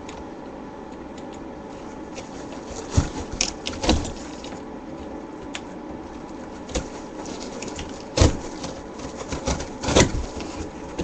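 Scattered sharp knocks and clicks, about half a dozen, over a steady hiss, like objects being handled and set down.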